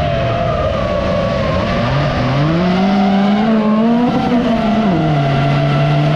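Rallycross race car engine accelerating: its pitch climbs about two seconds in, holds high, then drops back about five seconds in. A steady high whine runs underneath.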